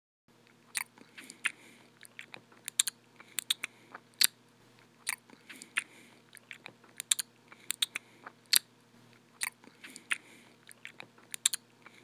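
A person chewing crunchy food close to the microphone: an irregular series of sharp crunches, two or three a second, over a faint steady hum.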